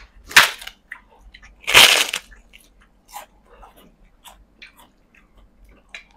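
Person eating: chewing with small wet mouth clicks, and two loud crunchy bites, one about half a second in and a longer one around two seconds in.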